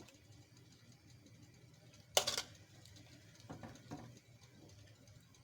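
A brief clatter of a utensil against a cooking pot about two seconds in, followed by a couple of faint knocks. Otherwise quiet room tone.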